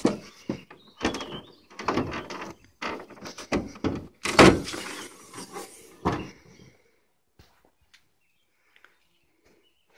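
Clunks, rattles and scrapes of a pickup truck's hood being unlatched at the grille and lifted open, the loudest clunk about four and a half seconds in, then quiet.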